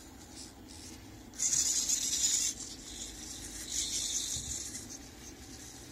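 Felt-tip marker, moved by a small servo robot arm, scratching across paper while writing letters, in two longer strokes about one and a half and four seconds in, over a low steady hum.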